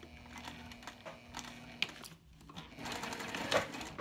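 Juki TL2010Q sewing machine stitching a seam through cork fabric, its motor humming with a run of needle strokes, then a sharp click about two seconds in and a short further run of stitching near the end.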